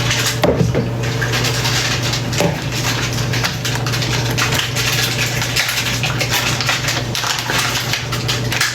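Kitchen dishes and utensils clinking and scraping, with many quick irregular clicks and rustles over a steady low hum.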